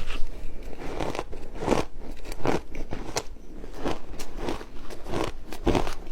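Close-up crunchy chewing of ice, about one and a half crisp crunches a second.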